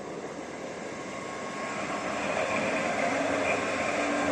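Bombardier Flexity 2 tram approaching and passing close by: its rolling wheel and running noise grows louder from about a second and a half in, with a few steady whining tones above it.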